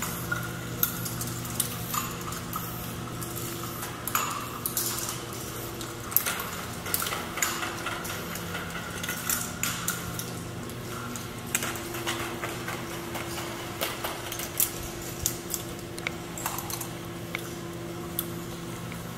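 Large K'NEX ball machine at work: plastic balls clicking and clattering irregularly along the plastic tracks and lifts, over a steady low hum.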